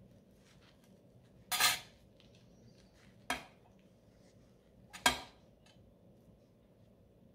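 Three sharp metallic clinks, each with a short ring, about a second and a half apart: a metal spoon knocking against a pair of scissors on the work table.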